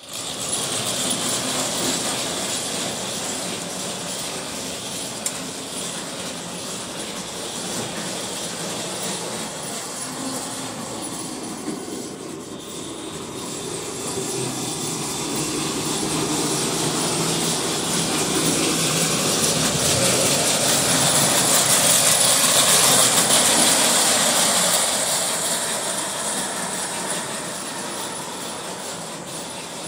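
Vintage Carlisle & Finch No. 45 2-inch-gauge tinplate electric locomotive and freight cars running on the track, the motor whirring and the brass wheels running on the rails. It grows louder about twenty seconds in, loudest for a few seconds, then fades as the train moves on.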